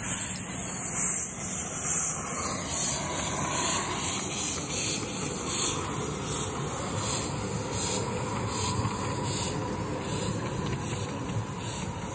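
Live-steam miniature locomotive under way, its exhaust beating in an even rhythm over a continuous hiss of escaping steam from around the cylinders.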